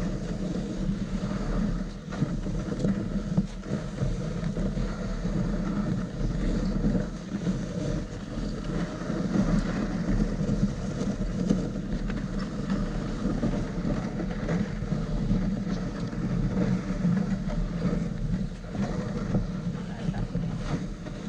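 A dog sled running fast over packed snow behind a team of dogs: steady rumbling and scraping of the sled on the snow track.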